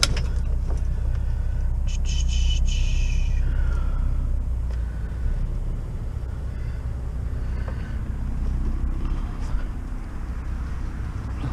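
A vehicle's engine running, a steady low rumble, with a brief high squeak about two seconds in and a few faint clicks.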